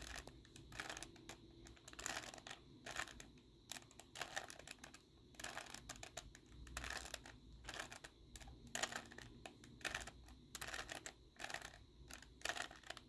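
Plastic Rubik's Cube layers being twisted in quick succession, a steady run of light clacking turns, about two a second, as a repeated right-hand and left-hand turn sequence is worked through for the final solving step.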